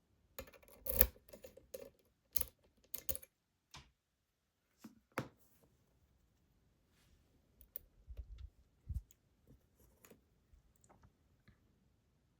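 Small clicks and taps from an ASSA Guideline lock and the picking tools being worked in it, coming irregularly. A cluster of sharp clicks falls in the first three seconds, the sharpest about a second in, and a few duller knocks come later.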